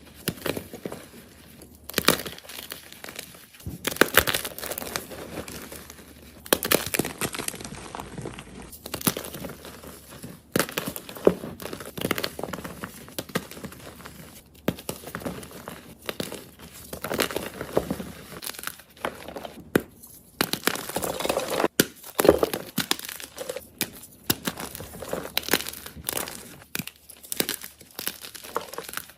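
A block of extra-soft gym chalk being crushed, crunching and crumbling in irregular bursts with many crisp crackles. The chalk is crunchy but never hard.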